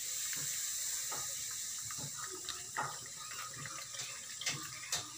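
Carbonated orange soft drink poured from a plastic bottle into a small plastic cup and tipped out into a wok over chopped aromatics, a steady pouring and fizzing with a few light knocks of the cup.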